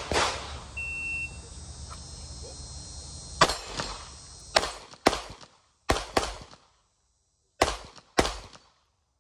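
Semi-automatic pistol fired in quick pairs of shots: a last shot right at the start, then about four pairs spaced roughly a second apart from about three seconds in.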